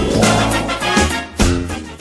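Upbeat intro jingle music with a steady beat of drum hits.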